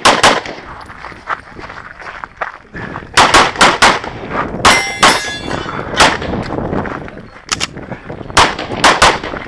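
Open-division race pistol fired in quick doubles and fast strings during a USPSA stage. About five seconds in there is a metallic ringing clang.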